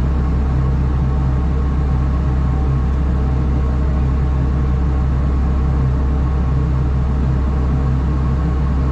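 A large engine running steadily, a low, even drone that holds the same pitch throughout.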